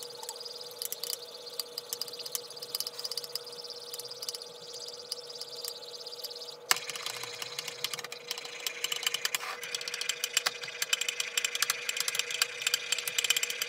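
A metal spoon beating fast against a ceramic mug, hand-whipping instant coffee, sugar and water for dalgona coffee: a rapid run of clinks and clicks that turns louder and denser about halfway through.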